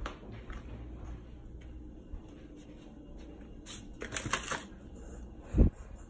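Paper plates rustling and scraping as they are handled and carried, with a denser patch of crackling about four seconds in. A single dull thump, the loudest sound, comes near the end.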